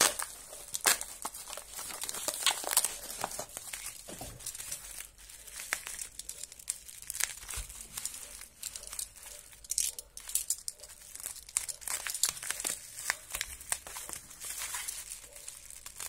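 Plastic bubble wrap crinkling and rustling in irregular crackles as it is handled, pulled apart and sliced open with a snap-off box cutter.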